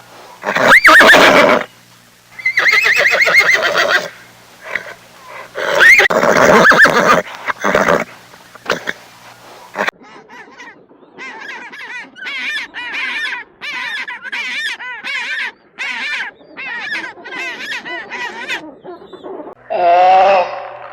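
A horse neighing several times, loud calls with many overtones. Then, after a cut, a run of short repeated bird calls, about one or two a second.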